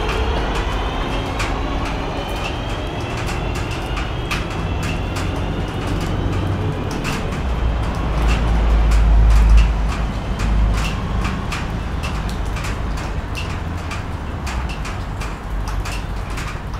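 Class 323 electric multiple unit pulling away, its traction motor whine rising in pitch and fading within the first couple of seconds as the train draws off, leaving a low rumble that swells about eight to ten seconds in. Rain drips land as sharp clicks, several a second, throughout.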